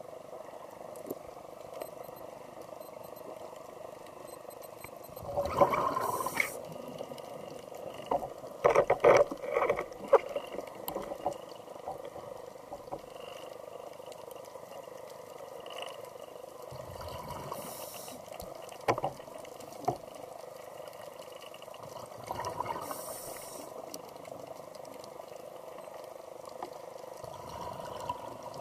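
A scuba diver breathing through a regulator underwater: several bursts of hissing air and bubbling exhalation a few seconds apart, over a steady low underwater hum.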